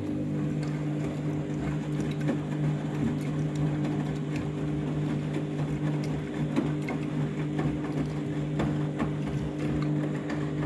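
Washing machine drum motor running with a steady hum while the drum turns, with many small irregular clicks over it. The machine is rinsing a load whose water is still full of suds from a detergent overdose.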